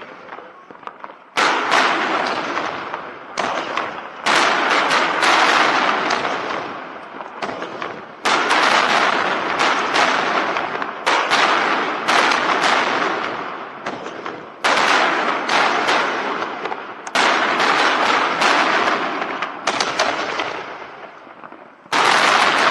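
Aerial fireworks shells bursting in a barrage: sharp bangs every one to three seconds, sometimes several close together, each trailing off in a long crackling decay.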